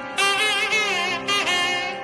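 Background music: a bending lead melody in short phrases over a steady held drone.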